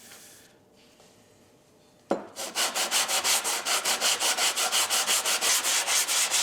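Cast-iron sole of a hand plane being lapped flat on sandpaper, about four quick back-and-forth strokes a second, after a single knock as the plane is set down on the paper about two seconds in.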